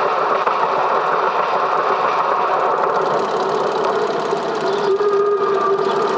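A steady mechanical running noise with a fast rattle, and a steady hum that comes in about five seconds in.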